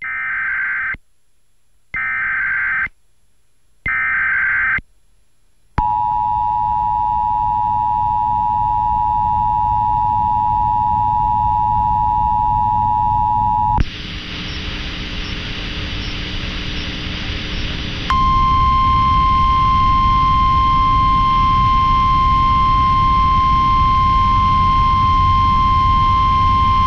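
Emergency Alert System activation tones. Three short bursts of SAME digital header data come first, then the two-tone EAS attention signal held for about eight seconds. A few seconds of radio hiss follow, and then a steady single-pitch alert tone, the NOAA Weather Radio 1050 Hz warning alarm, announcing a tornado warning.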